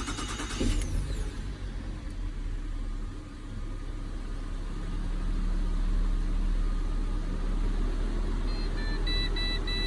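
Holden Commodore VZ engine catching from a restart and then running steadily, growing louder a few seconds in. A second-hand MAP sensor has just been fitted, and it has not cured the running fault. A run of short electronic beeps sounds near the end.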